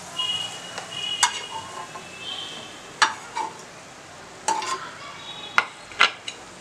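Garlic cloves sizzling in hot oil in a frying pan as a metal slotted spoon scoops them out, the spoon clinking sharply against the pan several times.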